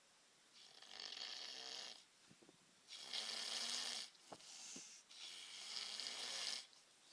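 Faint snoring: three long, noisy breaths about two seconds apart, the later two with a low rattling pitch.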